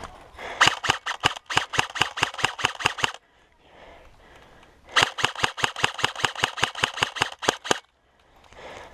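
Airsoft gun firing two rapid, evenly spaced bursts of shots, about eight a second: one of some two and a half seconds, then after a short pause another of nearly three seconds.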